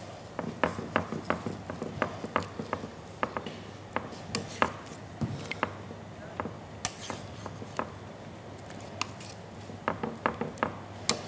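Metal kitchen tongs clicking and tapping against a ceramic baking dish as breaded chicken escalopes are pressed and turned in the breadcrumbs. The sharp, irregular clicks come thickest in the first few seconds and again near the end.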